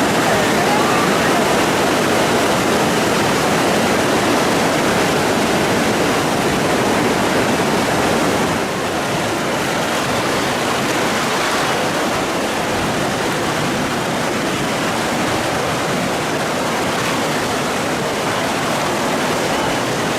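Steady loud rush of fast-flowing river water. It drops slightly in level about eight and a half seconds in.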